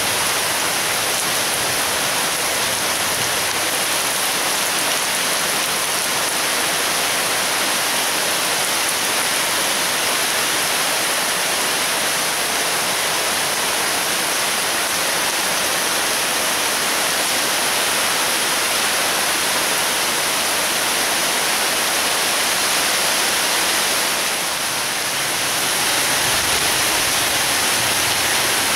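Heavy rain pouring down steadily in a dense, loud hiss. It eases slightly about 24 seconds in, then picks up again.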